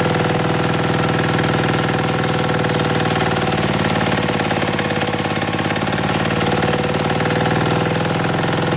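Denyo DA-2405 diesel generator engine running under heavy electric-heater load on 20 wt% water-emulsified diesel. It is bogged down: output voltage and frequency have dropped, to about 38–43 Hz instead of 50 Hz. The engine is slowest around the middle and picks up a little near the end.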